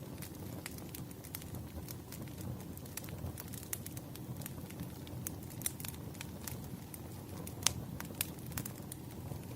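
Wood fire crackling: a steady low rumble of burning logs with irregular sharp pops and snaps, one louder pop near the end.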